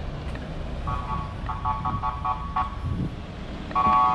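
Low rumble of road traffic at a street junction, over which a loud pitched beeping tone sounds in a run of short rapid pulses about a second in, then returns louder near the end.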